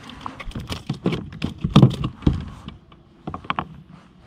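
Irregular knocks, clicks and thumps against a plastic kayak as a freshly caught fish is handled and brought aboard, loudest about two seconds in.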